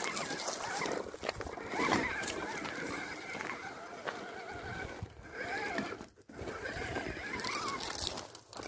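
An FTX Kanyon RC crawler's electric motor and gears whining as the truck crawls over rocks, the pitch wavering up and down with the throttle. The sound dips out briefly a couple of times, near the middle and toward the end.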